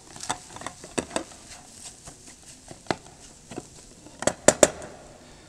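Spatula scraping and knocking against a metal camping pan of scrambled eggs, in scattered light clicks, with a quick run of sharper taps about four and a half seconds in.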